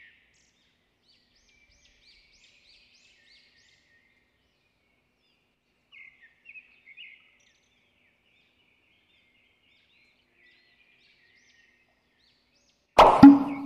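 Faint, scattered bird-like chirping. About a second before the end comes a sudden loud sound effect: two quick hits with a brief low hum under them.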